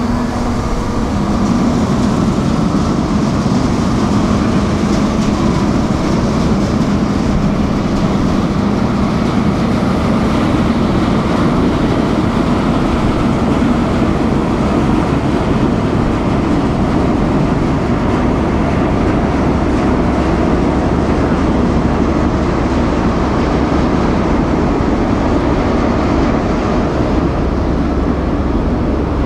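Steady, loud rumble of the car ferry Calanthe Okushiri's engines as it comes into harbour. The deepest part of the rumble grows a little stronger about halfway through.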